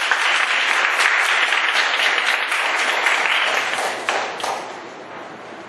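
A small group of people applauding. The clapping is dense at first, then thins out and fades over the last second or so.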